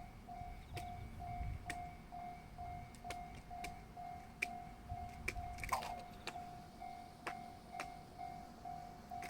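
A squirrel scampering, its claws giving sharp, irregular little taps and clicks, with a louder scrabble just before the six-second mark. Behind it a steady beep repeats about twice a second.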